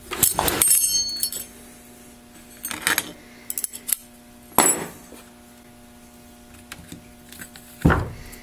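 Steel parts of a Turbo 400 transmission's center support clinking as the snap ring comes out and the intermediate clutch spring retainer plate is lifted off by hand. A ringing metallic clatter at the start, scattered clinks in the middle, and a duller knock near the end.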